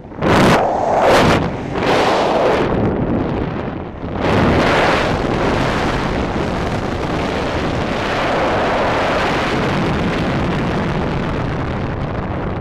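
Airflow from a paraglider in flight buffeting the camera microphone: a few loud gusts in the first two seconds, then a steady heavy rush of wind from about four seconds in.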